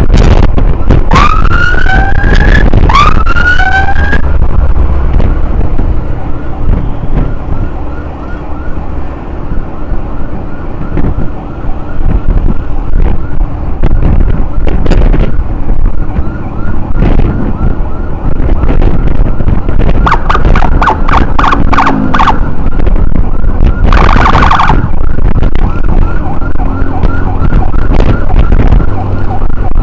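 Ambulance siren sounding urgently: two rising whoops, then a fast repeating yelp for the rest of the time, with a denser, louder stretch about two-thirds of the way through. Heavy wind and motorcycle engine noise runs underneath.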